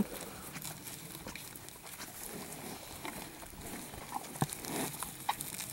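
Faint sounds of cattle crowding a fence: quiet rustling with scattered small clicks and knocks, one sharper click about four and a half seconds in.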